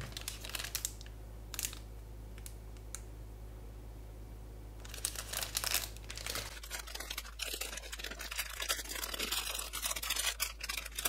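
Plastic anti-static packaging bags crinkling as they are handled: a few light rustles and clicks at first, then steady crinkling through the last four or five seconds.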